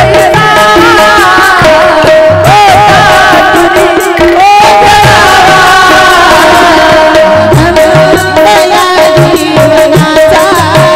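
A Marathi devotional bhajan: a singing voice over a held steady tone, with hand-drum strokes keeping the rhythm.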